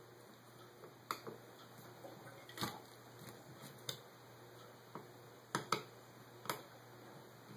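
Irregular light clicks and taps of metal parts being handled on a Holley 600 carburetor during disassembly, about seven sharp ticks spread unevenly, two of them close together near the end.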